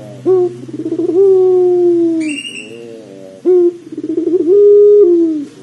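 Puter pelung, a long-voiced domestic Barbary dove, cooing twice. Each call is a short sharp note, then a trembling roll that rises into a long held coo and falls away at the end. A brief high chirp comes between the two calls, over a low steady hum.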